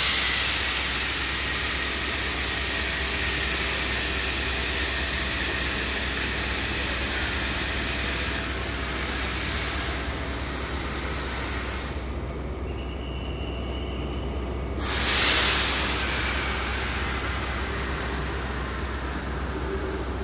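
Train air brakes hissing: a loud burst of released air settles into a steady hiss with a faint thin whistle in it. The hiss cuts off about twelve seconds in, and a second burst of air comes about three seconds later. A steady low hum runs underneath.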